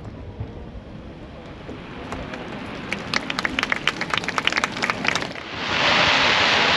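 Crackling fireworks: a rapid string of sharp pops and crackles for about two and a half seconds. About six seconds in, a loud, steady hiss of heavy rain comes in.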